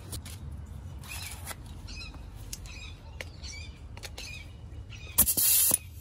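Birds chirping, with small handling clicks. About five seconds in, a loud hissing burst of about half a second as a hand-held wire-wheel tool is run briefly.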